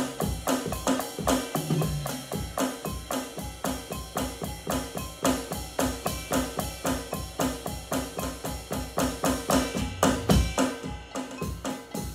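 Drum kit, which looks like an electronic kit with rubber pads, played with sticks in a fast, steady beat. A few louder hits come about ten seconds in.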